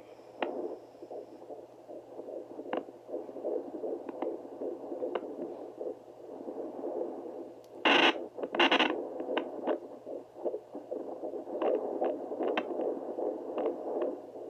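Home fetal doppler's speaker giving a pulsing, whooshing heartbeat sound through static as the probe searches the belly. About eight seconds in come two loud bursts of noise.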